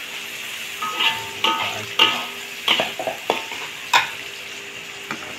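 Goat curry in its pot being stirred with a ladle over a steady sizzling bubble as the coconut milk goes in, with three sharp knocks of the ladle against the pot about two, three and four seconds in.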